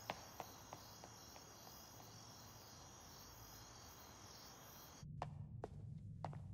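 Footsteps on a hard floor fading away within the first second, then faint room tone. About five seconds in the ambience changes abruptly to a low hum, and footsteps start again, about two or three a second.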